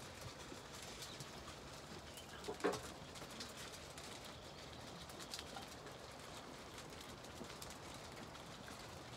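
Zwartbles sheep and lambs feeding at a trough: faint scattered clicks of chewing and hooves shuffling on the ground, with one short, louder sound about two and a half seconds in.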